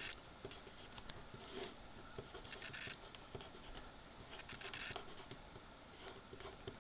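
Pen writing on paper: faint, short scratching strokes as words are written out by hand.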